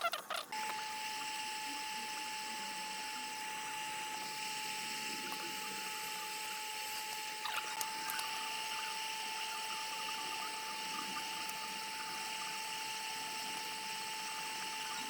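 Steady high-pitched whine over a hiss from a small electric motor or blower, running evenly with a few faint ticks about halfway through.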